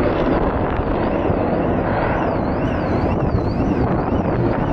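The F-16 Fighting Falcon's single jet engine gives a steady, loud, rumbling roar during its display flight. A faint high whine rises and falls over and over on top of it, about two to three times a second.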